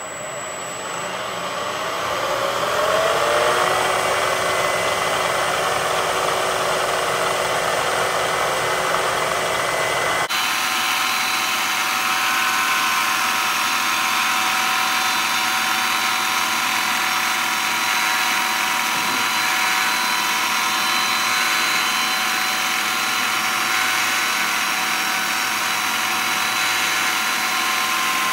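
Milling machine spindle with a twist drill in its chuck spinning up, rising in pitch over the first few seconds, then running steadily at about 3,000 RPM for a peck-drilling cycle in aluminium plate. The tone changes abruptly about ten seconds in.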